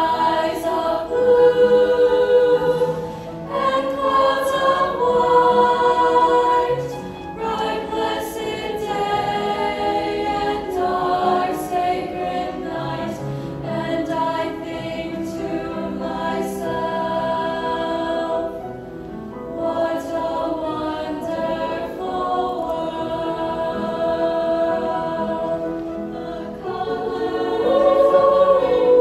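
Choir singing a slow piece in held notes that change every second or two.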